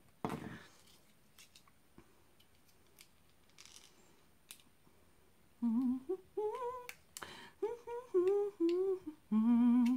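A woman humming a short, wandering tune, starting about halfway in, with a few faint clicks from a small plastic candy bottle being worked open in her hands before it.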